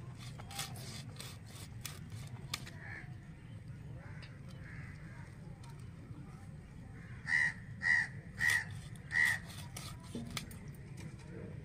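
A crow cawing four times in quick succession, each caw short and about half a second apart. Faint scattered clicks come in the first few seconds as fish is cut on a boti blade.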